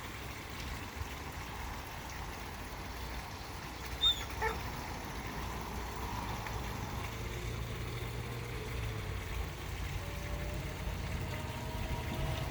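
A short, sharp animal cry about four seconds in, over a steady low rumble.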